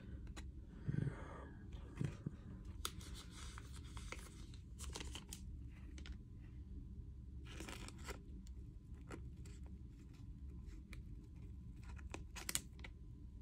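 Hockey trading cards being handled: brief papery rustles and scrapes as the cards slide against each other, with a few sharp clicks. The strongest come about a second in, around the middle and near the end.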